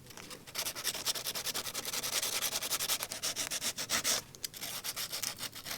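Hand sanding: sandpaper rubbed in quick back-and-forth strokes over filler, louder for the first four seconds, then fainter.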